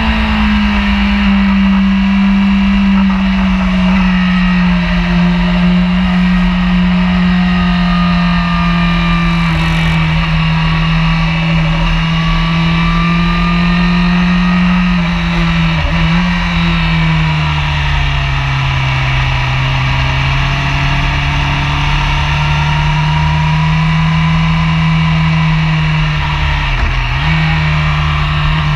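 Honda sportbike engine running hard at track speed under a steady rush of wind on the microphone. Its note holds fairly steady, drops lower about halfway through, and dips briefly near the end.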